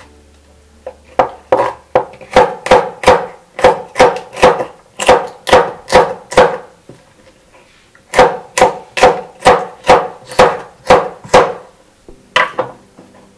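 Chef's knife chopping a green chili pepper on a wooden cutting board: even strokes, about three a second, in two runs with a short pause between them and a couple more strokes near the end.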